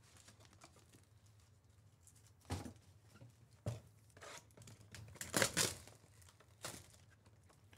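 A cardboard Bowman Chrome Mega Box being torn open and its wrapped card packs pulled out: a handful of short tearing and crinkling sounds, the loudest about five and a half seconds in.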